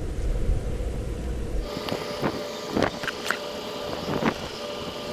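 Wind buffeting the microphone. About a second and a half in the wind drops away, and oil glugs out of a plastic jug into the dive compressor's crankcase in several short irregular gurgles over a faint steady hum.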